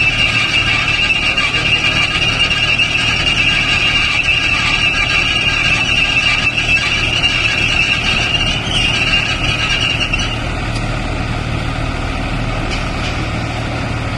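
Silage baling machine running: a steady low machine hum under a loud high-pitched whine that drops away about ten seconds in.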